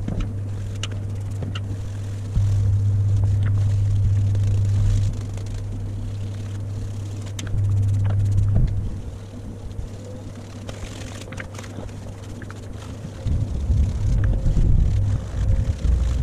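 A low rumble that comes and goes in stretches of a few seconds, with scattered sharp clicks and scrubbing as an engine mount is sprayed with engine degreaser and scrubbed by hand.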